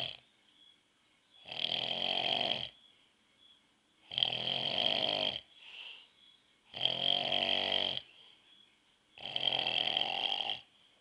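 A man snoring in his sleep: four long snores, each a little over a second, coming about every two and a half seconds.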